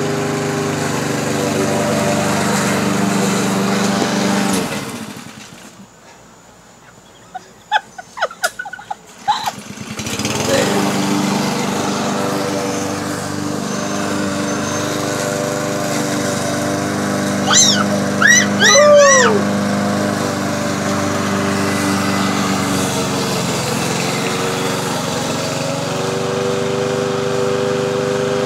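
Walk-behind gasoline push mower's engine running steadily, then fading out about five seconds in. A few sharp clicks follow in the quiet, and the engine runs steadily again from about ten seconds in. A few short high-pitched chirps sound briefly over the engine past the halfway point.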